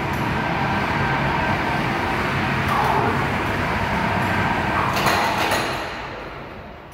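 Electric trolley of a 10-tonne overhead bridge crane running along the girder with a load hanging from its hook: a steady mechanical drone with a faint whine. A brief knock comes about five seconds in, and the running sound dies down near the end.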